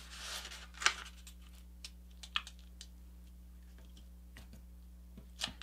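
A square sheet of paper being folded by hand: a short rustle, a crisp crinkle a little under a second in, then scattered soft ticks as fingers press and run along the crease.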